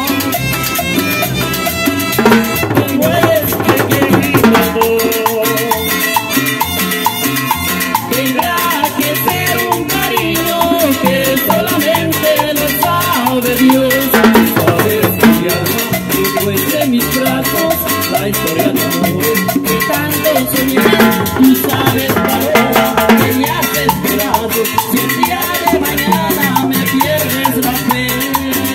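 Live Latin tropical band playing an instrumental passage: violins carrying the melody over acoustic guitar, bass guitar, timbales and a metal güira scraper keeping a steady dance beat.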